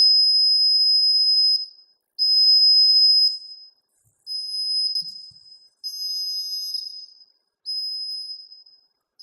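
Buzzer of a homemade laser-tripwire alarm sounding a steady high-pitched tone in five separate bursts of one to two seconds. Each burst is a hand breaking the laser beam so that the LDR goes dark and completes the buzzer circuit.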